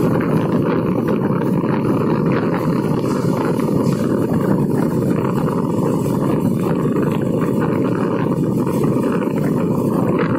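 Steady noise of a vehicle travelling through a road tunnel: engine, tyre and wind noise on the microphone, even and unbroken throughout.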